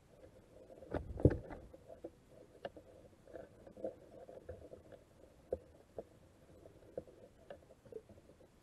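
Muffled underwater knocks and clicks picked up through a GoPro's waterproof housing, with a heavier dull thump about a second in and scattered sharper clicks after it.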